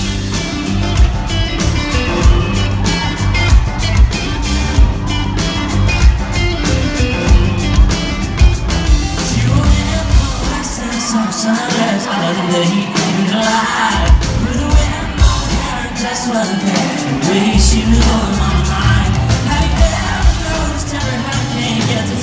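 A live band plays an electric-guitar-driven pop-country rock song with drums, bass and vocals. About halfway through the drums and bass drop out for a few seconds, twice, then come back in full.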